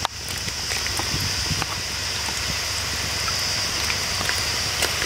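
Peanut pakoda batter deep-frying in a kadai of hot oil: a steady sizzle with many small crackles and pops.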